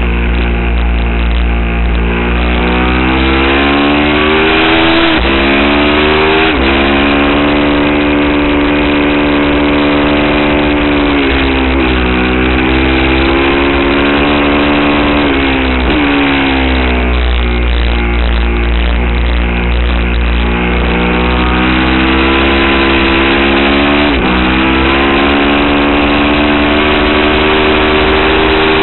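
Aprilia Tuono's V-twin engine being ridden hard on track, its pitch climbing through the revs and dropping suddenly at gear changes several times, with steadier stretches between. A rush of wind noise runs under the engine.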